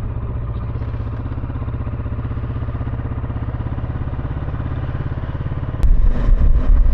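Kawasaki Versys 650 parallel-twin engine running steadily at low revs, one even pitch. A little under six seconds in, a click, then a louder, rough low rumble takes over.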